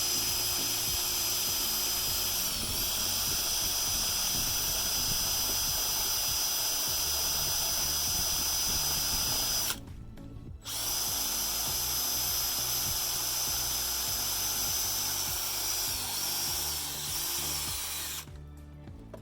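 Electric drill running at high speed with a steady high whine, spinning a sharpened wire coat hanger to bore a pilot hole through wood. It stops for about a second near the middle, starts again, and stops shortly before the end. Background music plays underneath.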